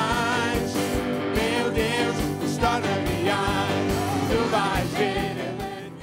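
Worship music: a man singing a Portuguese praise song into a microphone over a band with a steady drum beat, fading out near the end.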